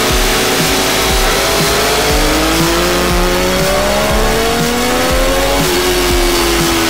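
Triumph Daytona 675's three-cylinder engine through an aftermarket Devil Rocket exhaust, accelerating. Its pitch climbs for a few seconds, then drops sharply about five and a half seconds in and holds lower, as with a quickshifted upshift.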